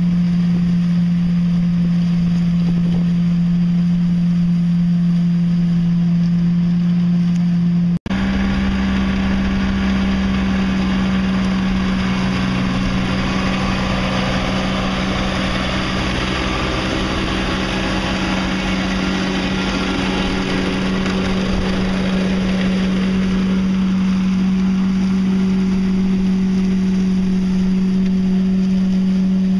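Compact tractor and PTO-driven Ryetec flail collector running steadily while cutting and collecting grass, with a constant low hum and a wash of machine noise. The sound drops out for an instant about eight seconds in. In the middle stretch it carries more hiss.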